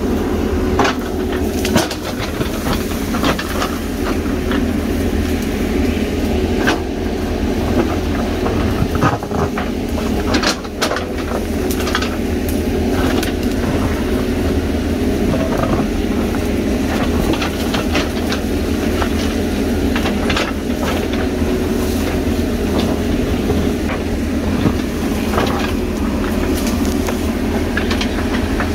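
JCB backhoe loader's diesel engine running steadily under load while the backhoe bucket digs into rocky soil and brush, with scattered sharp knocks and scrapes of the bucket striking stones and earth.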